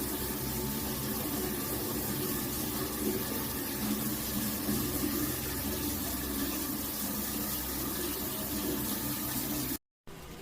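Water running steadily from an instant water heater's outlet, with the steady hum of the heater's built-in pump under it. It cuts off suddenly near the end.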